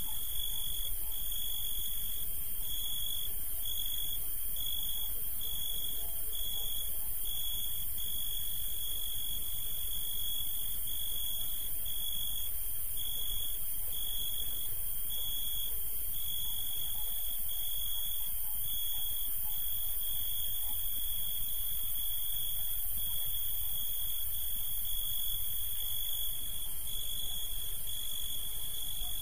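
A steady high-pitched tone, broken by short gaps roughly every half second to second, over a low background rumble.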